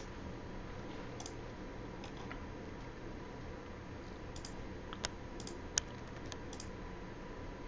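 About ten scattered clicks of a computer mouse and keyboard, most of them in the second half, over a faint steady hum.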